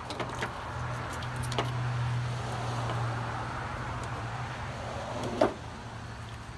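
Metal tool and fastener noises during engine-bay wiring work: a few light clicks, a whirring stretch lasting a few seconds, then one sharp metallic clank near the end.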